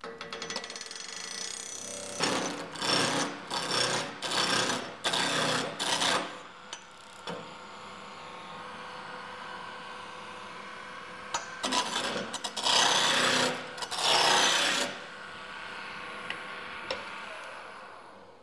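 Wood lathe running with a steady hum while a turning gouge cuts into the spinning square blank for a chair leg, roughing it round. The cutting comes in two spells of loud, rasping bursts, the second, a few seconds after the first, the louder, with only the lathe's hum between and after them.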